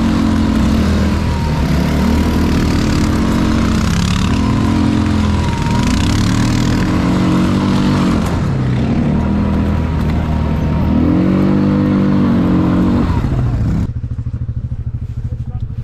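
Quad bike (ATV) engine under way off-road, the engine note rising and falling as the throttle opens and closes. About two seconds before the end the throttle drops off and the engine settles to a low idle as the quad stops.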